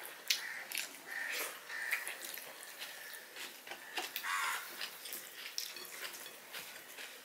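Two people eating fried rice by hand at close range: chewing, biting and lip-smacking, with quick wet clicks throughout.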